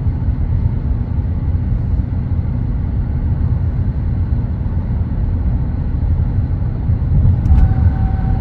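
Steady low rumble of road and engine noise inside a car travelling along a highway. A steady high tone joins near the end.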